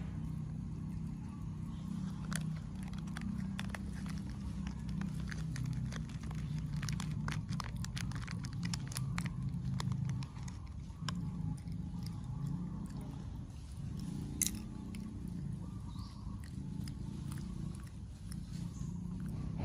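Steady low background rumble with scattered small clicks and ticks, and one sharper click about two-thirds of the way through.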